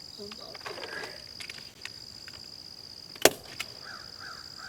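Insects trilling steadily in a high-pitched buzz with brief breaks, and a single sharp snap about three seconds in.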